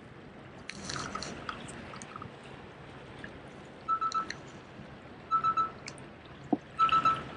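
Daiwa 18 Zillion TW HD baitcasting reel cranked in short spurts: a brief whirring gear whine about every second and a half, three times, as line is taken in a little at a time. A short rustle comes about a second in.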